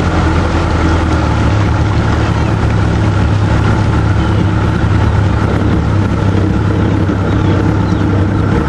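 Small motorboat's engine running steadily under way, a constant low drone with a steady hiss over it.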